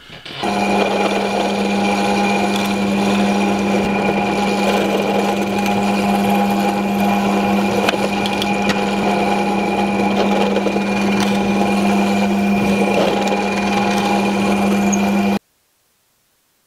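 Benchtop drill press running at a steady pitch while its bit drills and countersinks holes in a wooden board. The sound stops suddenly about a second before the end.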